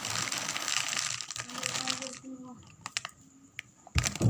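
Plastic packaging crinkling for about two seconds, then a few light clicks and two louder knocks near the end.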